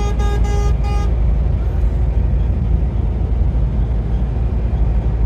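A vehicle horn tooting a quick string of short beeps in the first second, a greeting between passing truckers, over the steady low drone of a truck cab at highway speed.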